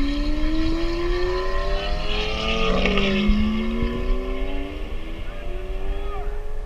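A Lamborghini accelerating past and away up the road, its engine note climbing, dipping once about three seconds in, then climbing again.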